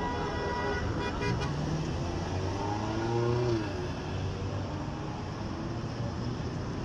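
Street noise of a protest march: vehicle engines running with a steady hum. About halfway through, a voice calls out briefly.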